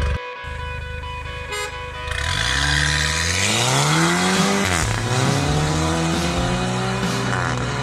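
Remapped Mercedes-Benz A250 with an aftermarket valvetronic exhaust accelerating hard: the engine note rises, drops sharply at an upshift about five seconds in, then climbs again through the next gear.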